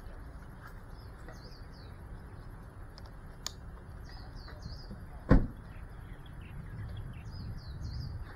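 Birds chirping in short, repeated curling calls over a low steady rumble, with one loud low thump about five seconds in.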